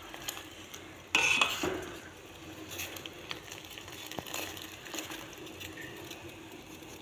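Milk being poured from a cup into a steel pot of boiling tea, with a sudden clink of metal on metal about a second in and a few light clinks of the pot and cup after it.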